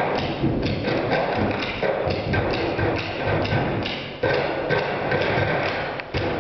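A group doing a body-percussion stomp-and-clap routine: hand claps and thumps in a quick, steady rhythm.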